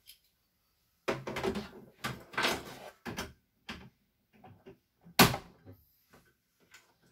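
Plastic embroidery hoop being handled and fitted onto the carriage arm of a CNY E900 embroidery machine: rustling and a few small clicks, then one sharp click about five seconds in as the hoop goes into place.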